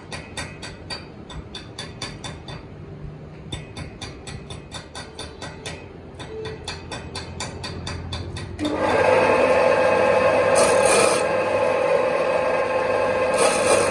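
Rapid, even rasping strokes on metal in a metalworking shop, about four or five a second, with a short pause about three seconds in. About two-thirds of the way through, a much louder machine starts up and runs steadily with a whine.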